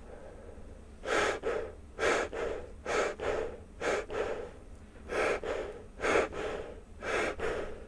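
A person taking quick, forceful breaths in and out through an elastomeric respirator (Prescient X NanoMask) while both palms cover it. The air rushes in short paired strokes, about one pair a second, starting about a second in. This is a user seal check, testing whether the mask leaks.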